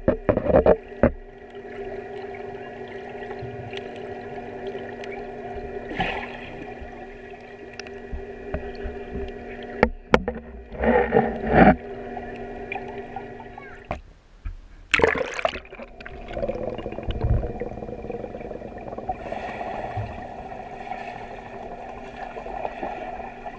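Muffled underwater sound in a swimming pool, heard through a submerged camera: a steady hum with several held pitches, broken by bursts of splashing and bubbling from swimmers, the loudest about eleven and fifteen seconds in.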